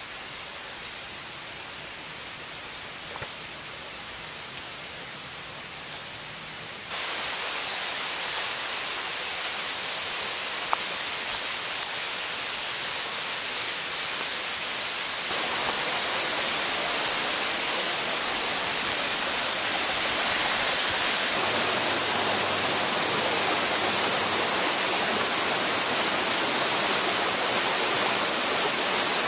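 Steady rushing of water, a continuous hiss with a few faint ticks, getting louder in two sudden steps about seven and fifteen seconds in.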